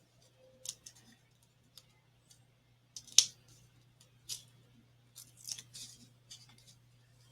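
Small paper crackles and clicks from peeling the paper backing off adhesive foam pads and pressing them onto a paper card. The sharpest click comes about three seconds in.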